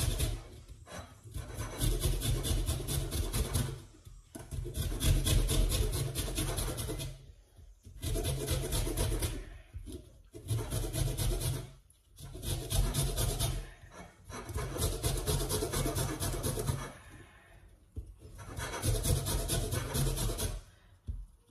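Lemon rind being grated on a flat handheld fine metal grater for zest: rapid rasping strokes in runs of one to three seconds, with short pauses between the runs.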